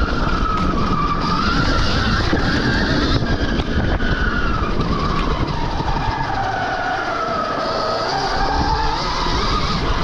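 Stark Varg EX electric dirt bike's motor whining while riding trails, its pitch rising and falling with speed, over loud wind and trail noise.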